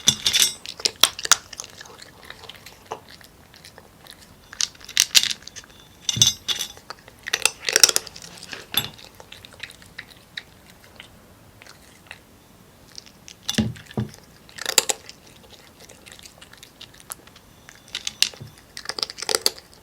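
A cat crunching dry kibble, chewing in short bouts of crisp crunches separated by pauses of a few seconds.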